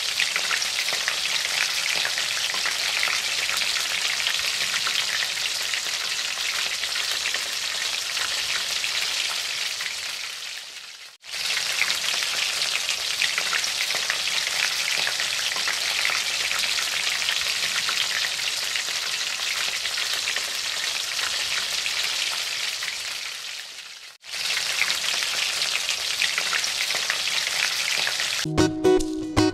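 Blue marlin steaks sizzling steadily as they fry in lemon butter garlic sauce in a pan, the sound breaking off twice briefly. Guitar music comes in near the end.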